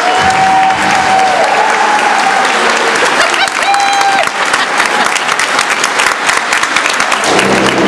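Audience applauding and cheering, dense clapping with a few held whoops and shouts rising above it.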